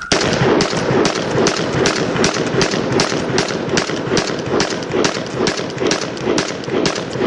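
Glock 22 .40-calibre pistol firing a rapid, steady string of shots, about four a second, fed from an aftermarket 30-round magazine. The string runs without a jam or stoppage: the magazine feeds properly.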